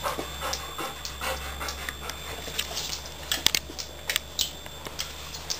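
A 13-year-old black Labrador cross golden retriever panting in quick, rhythmic breaths. A few sharp clicks come between about three and four and a half seconds in.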